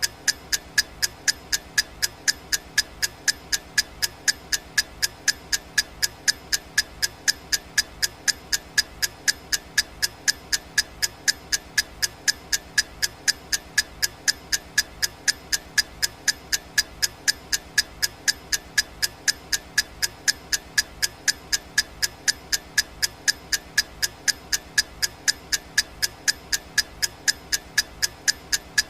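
Clock-ticking sound effect: quick, even ticks, several a second, at a steady level.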